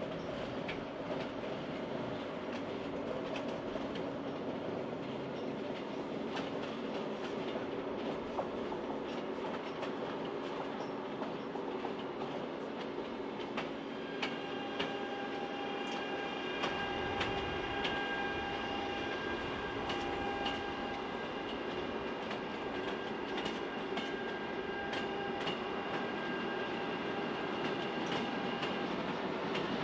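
Locomotive-hauled KORAIL Line 4 electric multiple unit running on the track, its wheels clicking over rail joints. About halfway through, a steady high-pitched whine sets in and comes and goes.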